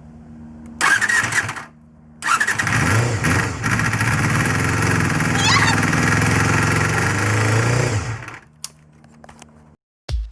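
Honda Jade (MC23) 250 cc inline-four MC14E engine being started: a short burst about a second in, then it catches and runs for about six seconds before being switched off suddenly. The engine is one whose owner is chasing an abnormal internal noise.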